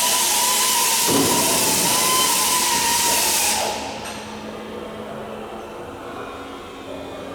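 Air-powered hand tool running with a high whine over a loud rush of air, then cut off about four seconds in.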